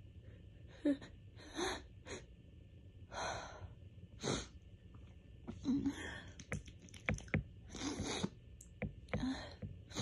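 A woman's allergy sneezing fit: a string of short, sharp gasping build-up breaths and sneezes, roughly one a second, with a flurry of quicker, sharper sounds just past the middle.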